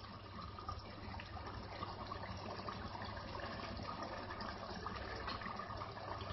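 Chickpea and chicken curry simmering in a pot on a gas stove, a soft bubbling stirred by a spatula at first, over a low steady hum.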